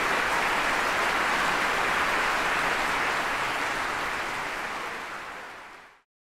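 Audience applauding, a dense steady clapping that fades out over the last couple of seconds.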